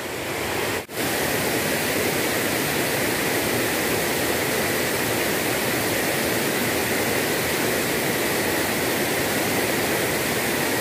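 Steady rush of a fast-flowing, muddy river running over rocks. It cuts out for a moment about a second in, then carries on.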